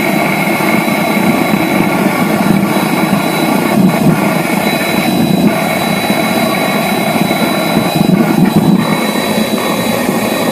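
Home-made vegetable-oil-fired furnace running flat out: the air-blast burner jet and flame make a loud, steady rushing noise, with a thin high whistle running through it.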